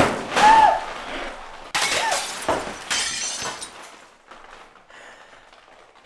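Water splashed hard against a full-face helmet and the face inside it, a sudden wet hit followed by a short high yelp. A second splash with more yelps comes about two seconds in.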